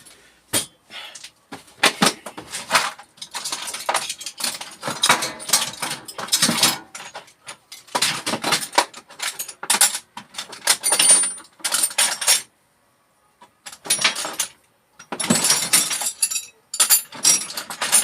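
Metal parts and tools being handled and put down, with repeated clinks, knocks and rattling clatter.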